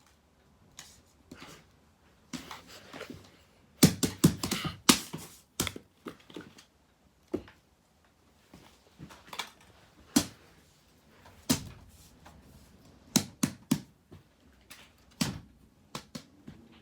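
Small fidget toys being handled and fiddled with: irregular clicks and taps, busiest about four seconds in, then scattered single clicks.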